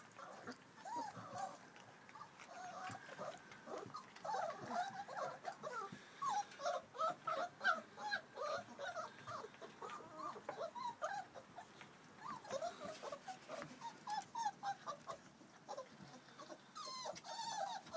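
A litter of four-week-old puppies whimpering and squeaking: many short, high, wavering calls overlapping one another, with sharp clicks from their feeding at a metal bowl.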